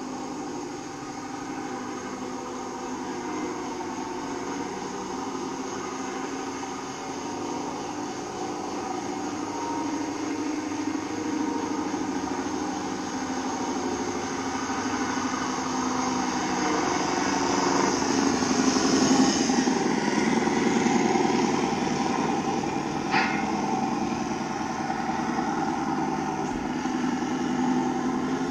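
Radio-controlled model Scania truck running with a steady engine sound, louder as it comes closer, loudest about two-thirds of the way through, then easing off as it drives away. A single sharp click a few seconds after the loudest point.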